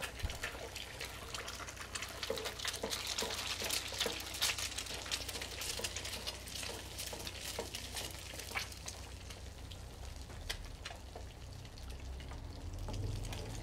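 Eggs frying in hot oil in a metal frying pan, a steady sizzle with many small pops and crackles, busiest a few seconds in.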